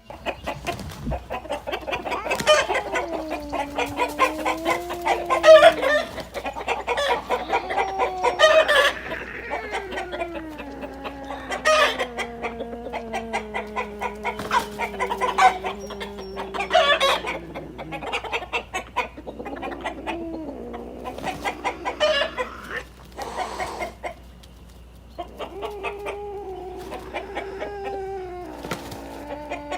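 Chicken clucking and squawking in rapid runs, with long, wavering calls over it that slowly fall in pitch and last several seconds each; there is a short lull about three quarters of the way through.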